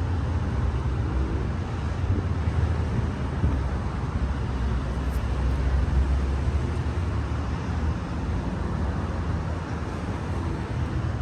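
Steady low rumble with an even hiss: outdoor background noise, with no distinct events.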